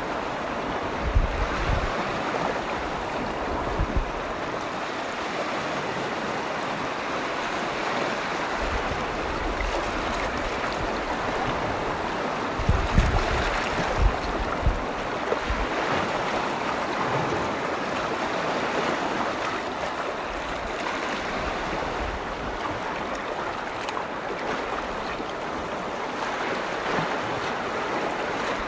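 Waves washing steadily against a freshwater lake shore. A few brief low rumbles of wind on the microphone, near the start and again about halfway through.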